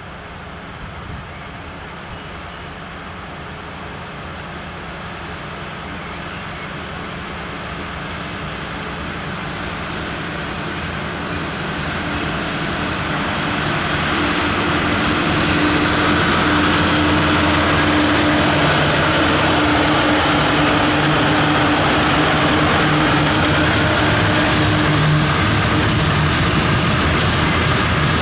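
A 2M62UM twin-section diesel locomotive hauling a freight train, its engines growing steadily louder as it approaches and then running loud and steady as it passes close by. Near the end, the freight wagons' wheels start clicking rhythmically over the rail joints.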